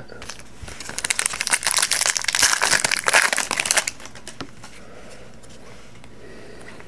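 Wrapper of a 2013-14 Panini Prizm hockey card pack crinkling as it is torn open and handled: a dense crackle that starts about a second in and lasts about three seconds.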